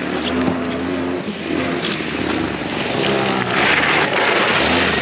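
Go-kart engine running, growing louder from about three and a half seconds in as a kart drives past close by.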